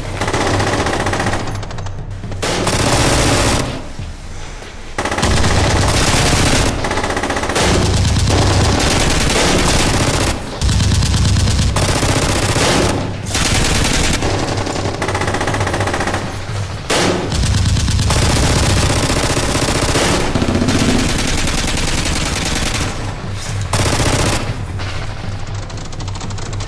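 Automatic gunfire in long, rapid bursts with short breaks between them, over background music.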